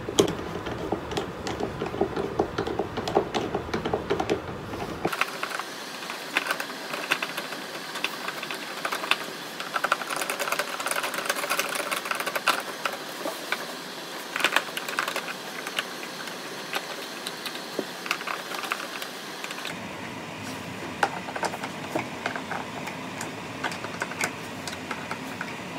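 Rapid, irregular clicking and tapping of small metal hardware as a caster wheel's mounting plate is screwed onto a particleboard cabinet by hand.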